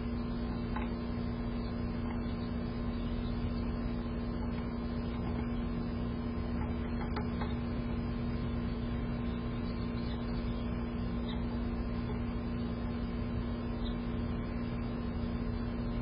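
A steady low hum at one constant pitch, with a few faint scattered taps of a female downy woodpecker pecking at suet in a wire cage feeder.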